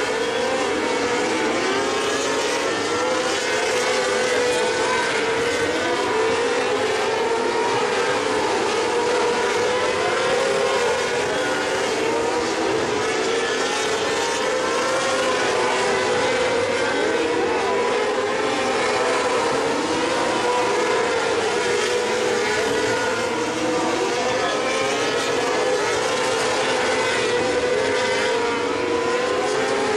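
Several mini sprint race car engines running hard together, their pitches rising and falling over one another as the cars lap the dirt oval.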